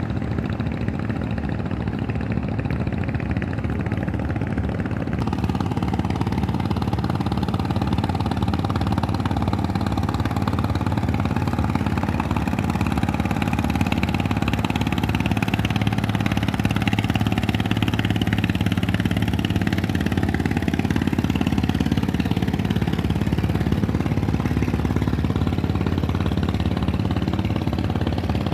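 Boat engine running steadily, growing a little louder about five seconds in.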